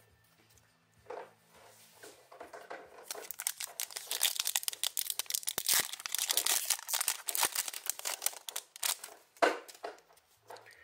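Foil wrapper of an Upper Deck MVP hockey card pack being torn open and crinkled by hand. It is a dense run of sharp crackles, starting about three seconds in and lasting some six seconds.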